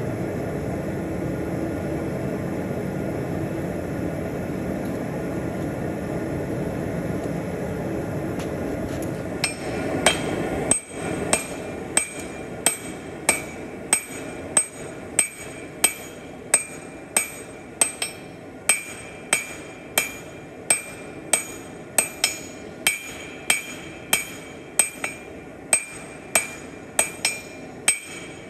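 A steady rushing noise for about nine seconds, then a blacksmith's hand hammer striking steel on an anvil at an even pace of about three blows every two seconds, each blow ringing.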